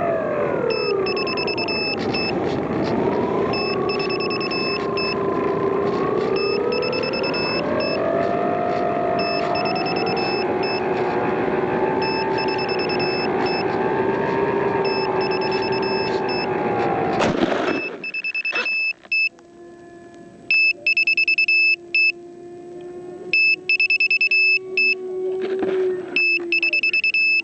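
Radio-controlled model plane's motor running, its pitch sliding down and then up and down, over short bursts of high-pitched electronic beeping. About two-thirds of the way through, the motor sound cuts off sharply, leaving the beeping bursts and a faint steady hum.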